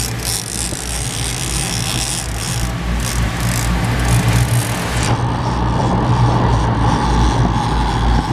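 Boat engine running steadily under a rushing hiss of wind and water; the hiss drops away about five seconds in, leaving the engine hum.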